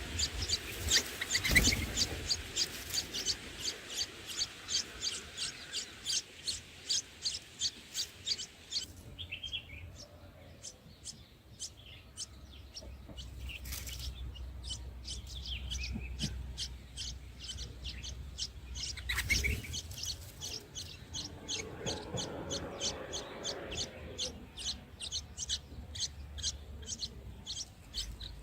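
Birds chirping in rapid series of short, high-pitched calls, several a second, thinning out about a third of the way in and picking up again toward the end.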